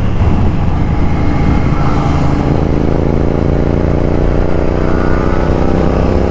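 Royal Enfield Continental GT 650's parallel-twin engine running at highway speed, mixed with wind rush. From about two seconds in, the engine's steady drone comes through more clearly over the wind.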